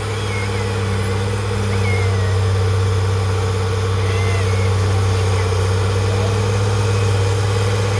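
Diesel engine of heavy earthmoving machinery running steadily with a deep hum, getting a little louder about a second and a half in.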